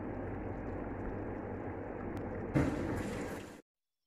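Chicken asado sauce simmering in a pan, a steady hiss. About two and a half seconds in there is a short, louder clatter, then the sound cuts off abruptly.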